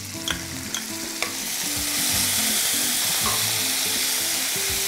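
Soy sauce poured into hot oil and golden-fried chopped garlic in a non-stick kadai, sizzling hard; the sizzle swells about a second and a half in and then holds steady. A few light clicks in the first second and a half.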